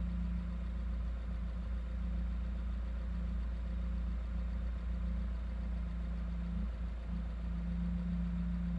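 Car engine running steadily with a low, even drone and no change in revs.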